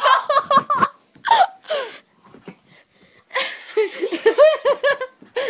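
Kids laughing hard in rhythmic ha-ha bursts: one at the start, a near-quiet stretch in the middle, then a longer burst near the end.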